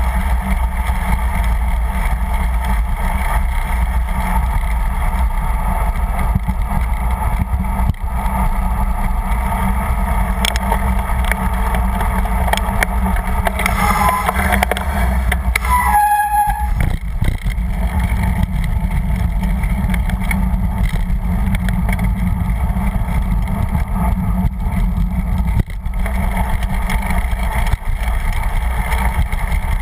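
Steady wind buffeting the microphone of a bicycle-mounted camera as the bike rolls along, with a low rumble throughout. About halfway through comes a brief squeal that steps down in pitch, and the wind noise eases for a moment just after it.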